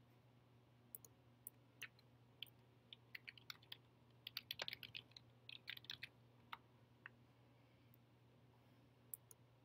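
Faint typing on a MacBook Air keyboard: scattered key clicks that thicken into a quick run of keystrokes in the middle, then two single clicks near the end.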